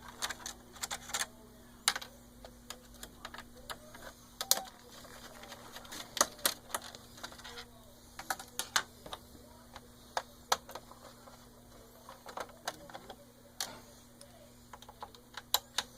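Irregular small clicks and taps of a screwdriver and of plastic and metal parts being handled while the power supply is taken out of an opened PS4 console.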